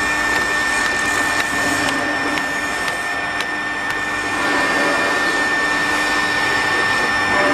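Electric winch motor running steadily as the drum winds on steel wire rope, with a steady high tone and a few sharp clicks.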